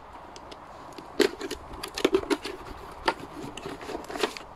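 Small cardboard product box being handled and its end flap pulled open: a run of sharp crackles and taps starting about a second in and ending near the end.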